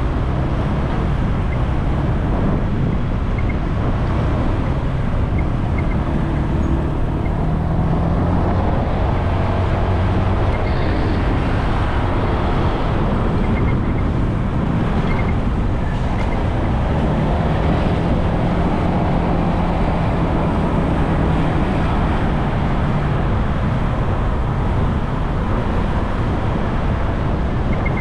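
Riding in town traffic: a steady rush of wind and road noise on the microphone, with engine hum from the vehicles around that rises and falls.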